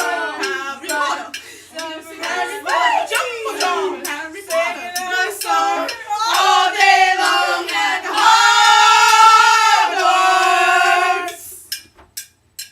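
High-pitched voices singing without clear words, sliding up and down, then holding one long note from about eight seconds in until it breaks off near the end. Sharp clicks run through it in a quick rhythm.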